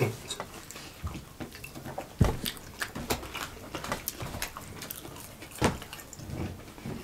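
Eating at a table: chewing, with small clicks and scrapes of a fork on a plate and a couple of louder knocks.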